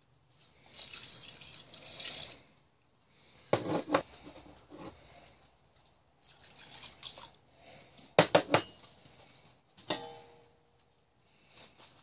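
Water poured from a mug into a stainless steel stew pot, twice, splashing onto the stew. Between the pours come sharp clinks and knocks against the pot, and one knock near the end leaves the metal briefly ringing.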